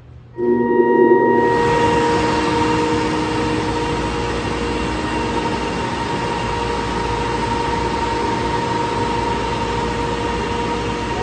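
Loud, steady drone of rushing noise with a held high tone, cutting in abruptly about half a second in: the sound of a gallery sound installation.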